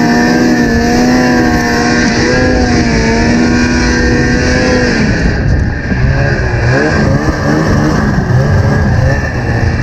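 Snowmobile engine running hard at high, steady revs while pushing through deep snow, then backing off about five seconds in, with the revs rising and falling in short swings afterwards.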